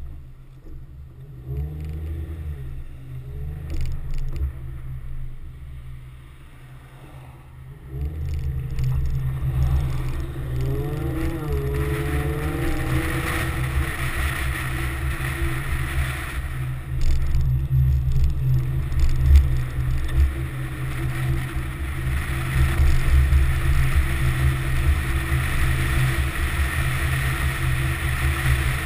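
Infiniti G35's V6 engine with road and wind noise, picked up by a camera mounted on the car's outside. There is a low rumble at first. The car pulls away about eight seconds in, its pitch rising as it accelerates, then it drives on steadily with tyre and wind hiss.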